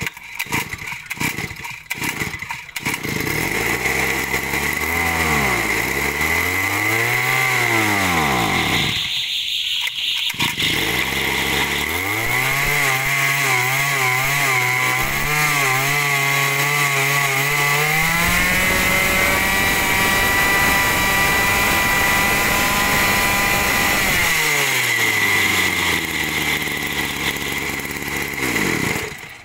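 Small 33cc two-stroke brush cutter engine, pull-started with a few ragged firings before it catches. It is revved up and down, runs high and steady for several seconds about two-thirds through, then slows and shuts off near the end.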